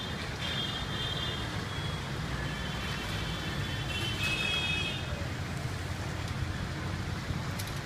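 Busy street traffic: a steady rumble of engines and tyres, with vehicle horns sounding, briefly near the start and then for a few seconds around the middle.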